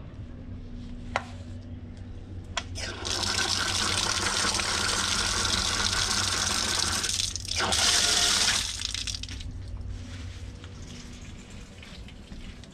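Old metal wall tap opened, water gushing from the spout and splashing onto a tiled trough for about six seconds, with a brief break near the end before it dies away. Two sharp clicks come before the water starts.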